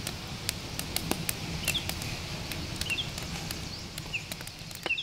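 Wood campfire crackling with irregular sharp pops, while a bird gives short chirps every second or so.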